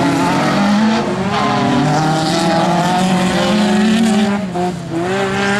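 Several autocross cars' engines revving hard on a dirt track, pitch rising and falling with gear changes and lifts off the throttle, with a short drop in level about four and a half seconds in.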